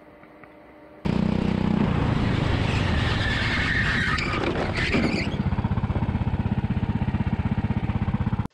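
A racing go-kart's engine running loud at high revs, heard from the driver's seat, with tyres squealing through a corner partway through. It starts suddenly about a second in and cuts off abruptly at the end.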